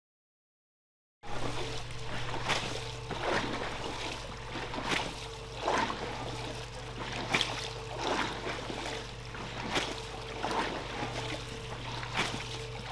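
Rug washing machine running: a steady motor hum under continual water splashing and trickling, with irregular louder splashes. The sound cuts in abruptly about a second in.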